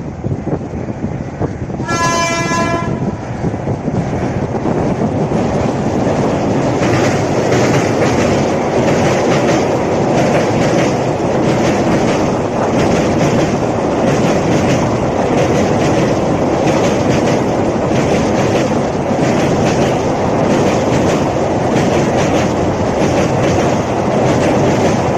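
A train's horn sounds once, briefly, about two seconds in. Then the express train runs over the river bridge: a loud steady rumble with a fast, regular clattering bang of the wheels on the bridge's rails.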